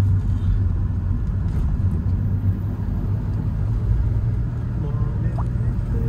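Motor vehicle driving: a steady low engine and road rumble.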